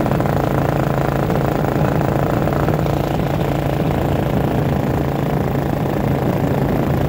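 Paramotor's two-stroke engine running at a steady speed with a constant low hum.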